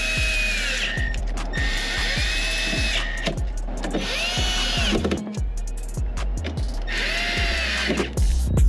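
Milwaukee cordless driver running screws in, in about four separate bursts, each whine rising as the motor spins up and falling as it stops. Background music with a steady beat plays throughout.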